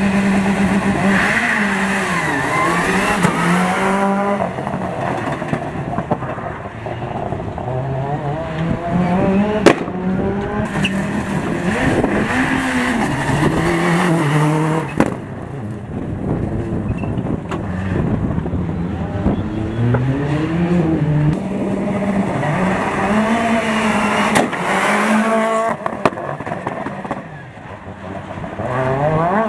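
Turbocharged four-cylinder World Rally Car engines passing one after another at speed. Each revs up and drops back through quick gear changes, and there is a sharp crack about ten seconds in.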